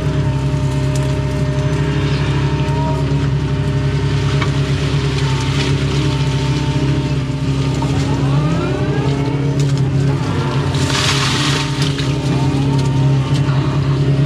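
Doosan excavator's diesel engine running steadily, heard from inside the cab, with the hydraulics whining up and down in pitch as the boom and bucket are worked, and a short rushing hiss about eleven seconds in.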